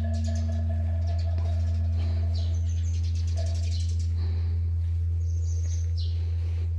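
Large bronze Buddhist temple bell (beomjong) ringing out after a strike: a steady deep hum, with higher overtones that fade away about three and a half seconds in. Small birds chirp over it throughout.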